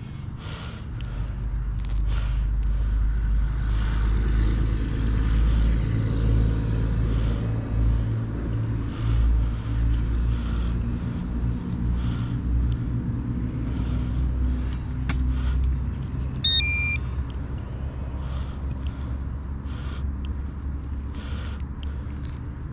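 A motor vehicle's engine running close by, a steady low hum that builds about a second in and eases off near the end, with scattered clicks and a brief electronic beep about two-thirds of the way through.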